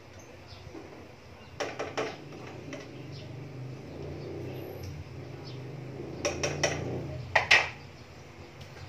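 Cookware and utensils clinking and clattering: a quick run of knocks about one and a half seconds in, another run around six seconds, and the loudest pair of clanks near the end, over a low steady hum.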